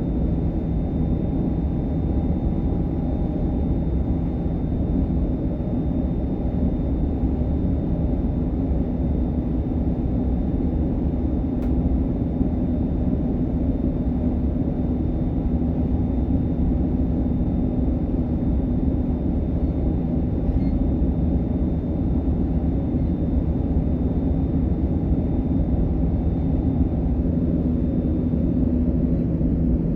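DB Class 425 electric multiple unit running at steady speed, heard inside the passenger compartment: a steady low rumble of wheels, running gear and traction equipment. A faint high steady whine fades out shortly before the end.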